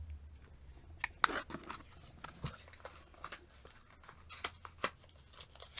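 Irregular small clicks and taps from cosmetic packaging being handled, starting about a second in, with the sharpest click just after that.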